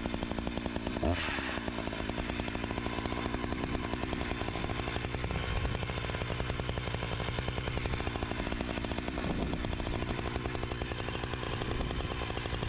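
Husqvarna two-stroke chainsaw running steadily at idle, with a short, louder burst about a second in.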